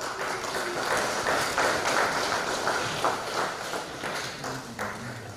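A congregation applauding: many hands clapping, starting suddenly and thinning out over the last second.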